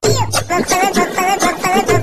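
Music with a quick, repeating melodic figure over a bass beat.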